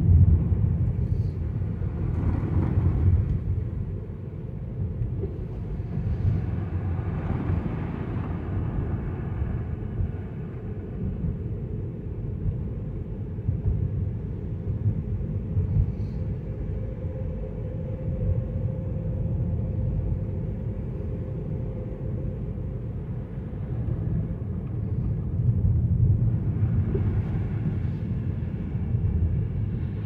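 Steady low rumble of a car driving on a wet, slushy road, heard from inside the cabin, with a few swells of hiss.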